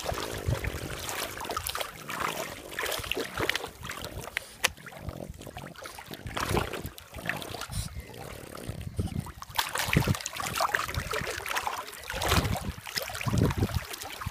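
Shallow water splashing and sloshing in irregular bursts as a small dog in a life jacket wades and paddles through it.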